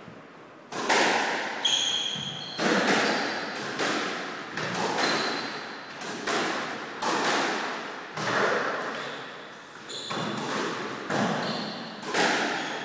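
Squash ball being struck by racquets and hitting the walls during a rally: sharp, echoing cracks about once a second in a reverberant court. Short high squeaks from court shoes on the wooden floor come between some of the hits.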